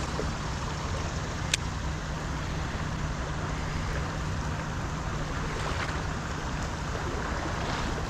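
Steady rush of flowing river water and wind on the microphone, with a faint low hum underneath and a single sharp click about a second and a half in.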